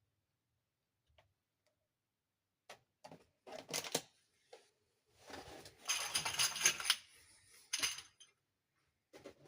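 Unboxing of a plastic toy dollhouse: a few sharp clicks and taps of plastic parts, then about two seconds of packaging rustling, and another click near the end.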